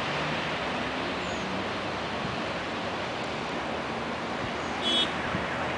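Steady hiss of outdoor background noise, with a brief high chirp about five seconds in.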